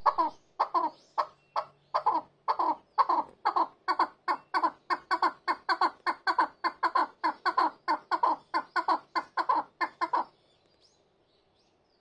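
Chukar partridge calling a long run of repeated clucking 'chuck' notes that quickens from about two to three a second, then stops abruptly about ten seconds in.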